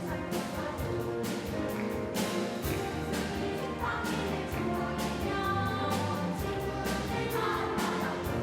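Children's choir singing held notes with orchestra accompaniment, over a regular beat of sharp strikes.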